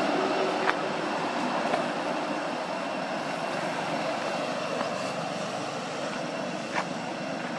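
Steady rushing outdoor background noise, with a few faint short clicks scattered through it.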